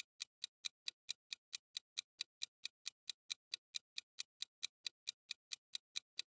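Countdown-timer ticking sound effect: even, quick clock-like ticks, about four or five a second, while the quiz answer timer runs.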